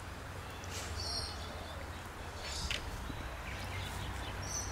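Quiet outdoor background with a steady low rumble and a few short, high bird chirps.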